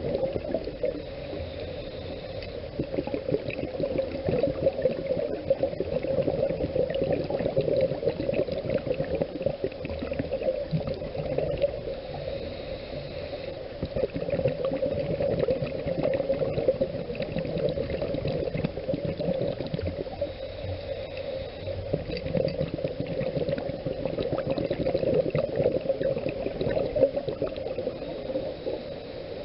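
Scuba diver's exhaled air bubbles gurgling, heard underwater through the camera housing, swelling and fading in waves every few seconds with the breathing.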